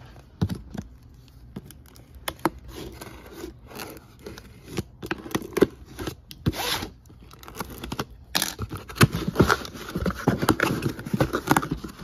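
Packing tape being ripped off a cardboard shipping case by hand, with cardboard tearing, scraping and flaps being pulled open. Scattered sharp clicks and rasps, busier in the second half.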